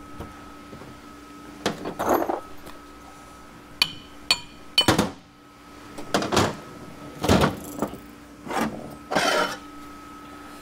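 Metal transmission parts from a 4L80E teardown clanking and clinking as they are handled and set down, about eight separate knocks, two with a brief metallic ring, over a faint steady hum.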